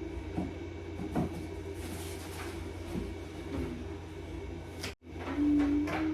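Light knocks and handling sounds as storage bins and organizer cubes are moved and arranged, over a steady low hum. After a brief drop-out about five seconds in, a steady humming tone comes in.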